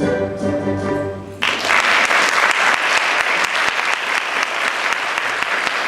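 A held final chord of music cuts off about a second and a half in, and an audience applauds steadily from then on.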